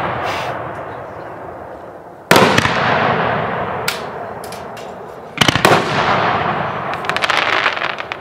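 Aerial firework shells bursting: a loud bang about two seconds in and a double bang about five seconds in, each dying away in a long echo. Small scattered pops in between, and a quick run of crackles near the end.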